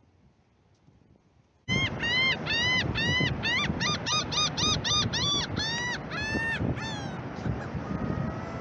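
Near silence, then about two seconds in, a gull cuts in with a fast series of about fourteen short, arched calls at nearly three a second over wind and surf. After that come a few weaker, drawn-out calls.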